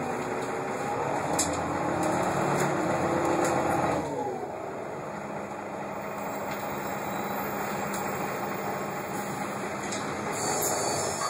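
Inside an Irisbus Citélis 12 city bus with a Voith automatic gearbox: the engine and driveline hum climbs in pitch as the bus accelerates. About four seconds in, the pitch and level drop away, and it settles into quieter, steady running.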